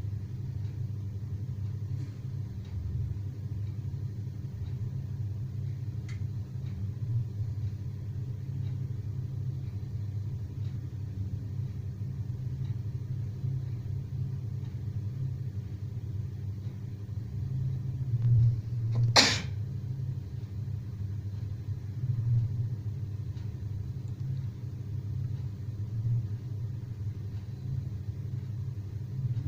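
Sleeping people snoring: a low, steady rumble that swells with each breath, about every four seconds in the second half. A single sharp click sounds a little after the middle.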